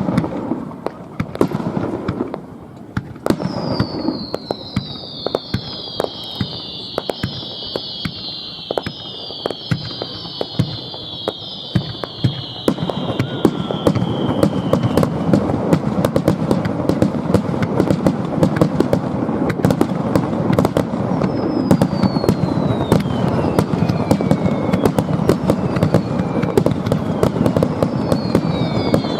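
Fireworks going off: a rapid run of bangs and crackles, with many whistles falling in pitch together for several seconds early in the barrage. From about halfway the crackling becomes dense and continuous, and more falling whistles sound near the end.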